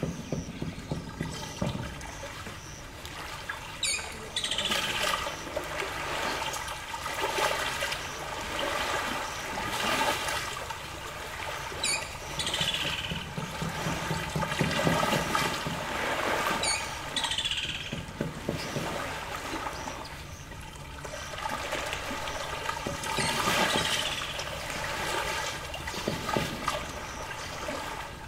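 Small lake waves lapping and washing against a muddy shore in uneven surges every few seconds. A short, high, falling sound comes back every four to six seconds.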